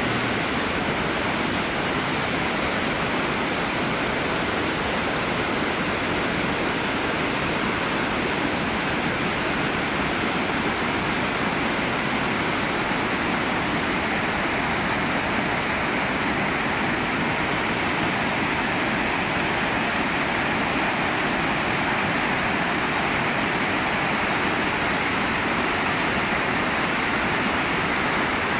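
Waterfall cascades rushing steadily, a constant roar of falling water.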